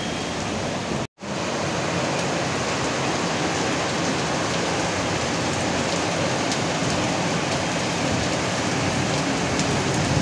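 Heavy rain pouring down steadily, a dense even hiss. It cuts out for an instant about a second in.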